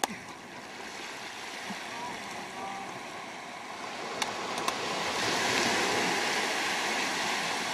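A large halibut flopping on wet sand, with a couple of sharp slaps a little after four seconds in, over a steady rushing noise that grows louder from about five seconds in.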